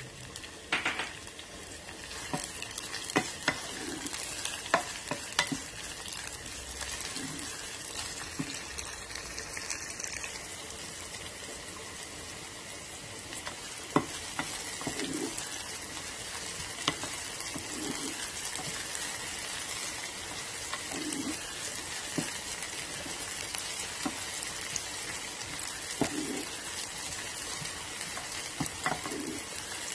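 Chopped hot peppers sizzling as they sauté in olive oil in a non-stick pot, stirred with a wooden spoon that scrapes through them and now and then taps against the pan.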